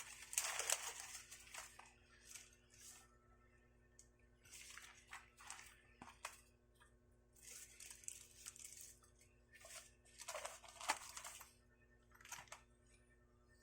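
Intermittent rustling and crinkling of plastic packaging and a document organizer being handled and unwrapped, in short irregular bursts.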